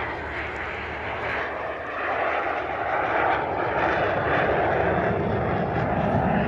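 Jet aircraft engine noise from a display aircraft flying past, a steady rush that grows louder about two seconds in.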